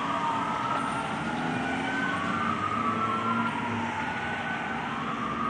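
A fire engine's siren wailing in slow rising and falling sweeps, with a second wail overlapping and crossing it.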